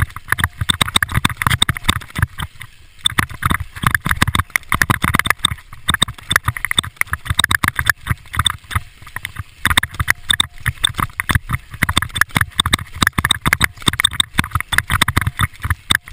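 Mountain bike clattering and rattling as it is ridden fast over a rough dirt forest trail, with tyres on dirt and roots and a low rumble of wind on the camera microphone. The rattle eases briefly about three seconds in.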